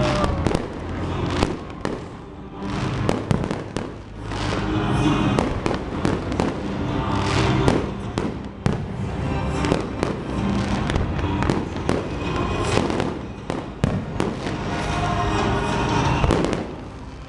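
Fireworks bursting in rapid, irregular succession, many bangs and crackles, over music played along with the display.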